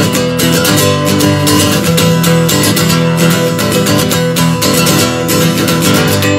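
Instrumental break in a song, led by strummed acoustic guitar with a steady rhythm.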